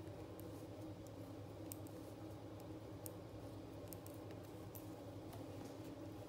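Faint, irregular clicks of metal knitting needles as stitches are worked, over a steady low background hum.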